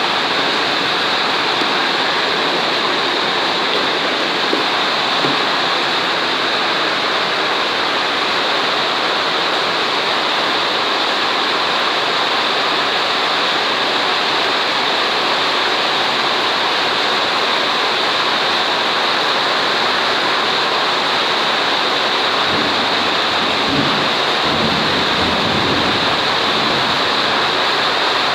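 Heavy rain falling, a steady, loud, even hiss of water.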